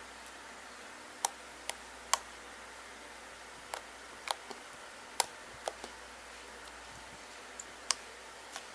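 Thick slime being kneaded and poked with fingers, giving off irregular sharp clicks and pops as trapped air bursts, about a dozen over several seconds, over a steady faint hiss.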